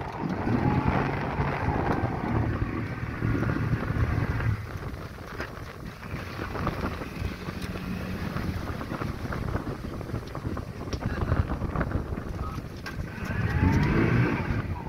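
Small motorboat's engine running under way, with water rushing past the hull and wind buffeting the microphone; the engine note rises and wavers near the end.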